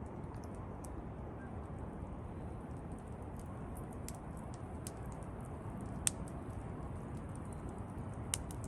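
Wood crackling: scattered small clicks and pops, with two sharper snaps about six seconds in and near the end, over a steady low rumble.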